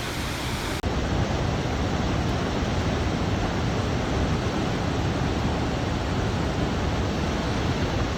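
Cumberland Falls, a large river waterfall, rushing in a steady, loud roar, a little louder from about a second in.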